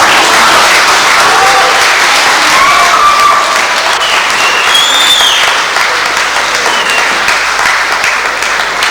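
Audience applauding, starting suddenly and going on steadily, with a few short voices calling out over it.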